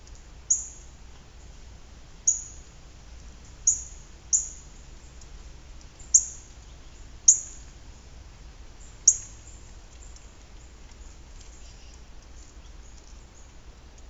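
Pileated woodpecker pecking suet pellets from a metal-mesh feeder, its bill striking the mesh in sharp, high clinks. Seven of them come at uneven intervals over the first nine seconds or so, each with a brief ringing tail.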